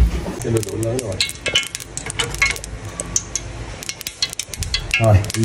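Cooking oil heating in a pot, crackling and sizzling with many quick sharp pops: the oil is hot enough to fry aromatics.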